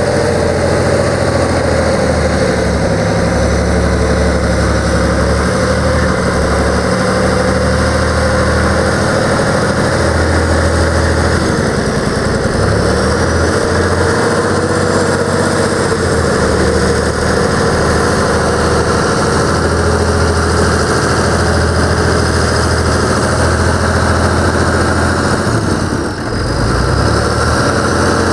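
Deutz F6L912W air-cooled six-cylinder turbo diesel of a Getman A200 lube truck idling steadily, with a brief dip in the sound near the end.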